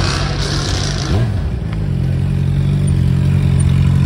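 Car engine at a car show blipping the throttle about a second in, then running with a steady exhaust note that grows slightly louder.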